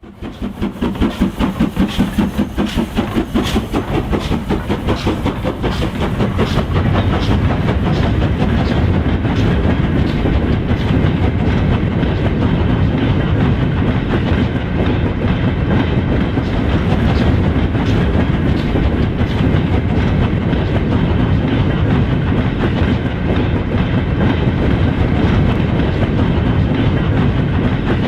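Model railway train running on the track: a steady rolling rumble with the wheels clicking over the rail joints, pulsing rhythmically in the first few seconds before settling into a continuous run.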